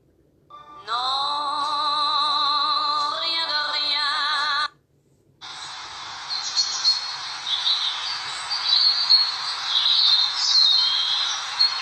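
A single sung or synthesized vocal note held with vibrato, sliding up into it, for about four seconds. After a brief break, a steady hiss with birds chirping over it.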